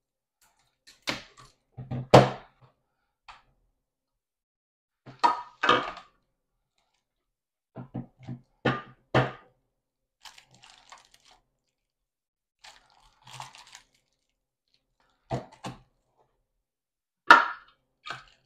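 A box and its packaging being handled during an unboxing: scattered knocks and thunks, the loudest about two seconds in and near the end, with brief rustling of packaging in between.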